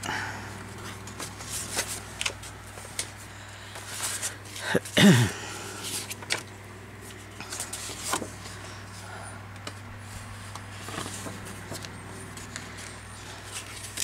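Paper and card being handled and shuffled while searching through a stack: scattered light rustles and taps over a steady low hum, with a brief murmur of voice about five seconds in.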